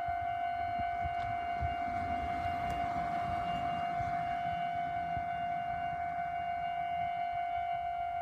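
Japanese railway level-crossing alarm in its fast 'high-speed' warning pattern: one steady high-pitched electronic tone with a slight quick pulsing, sounding without a break.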